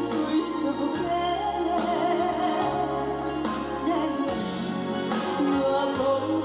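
Trot song performed live: band accompaniment with a gliding melody line over a steady bass and regular drum beats.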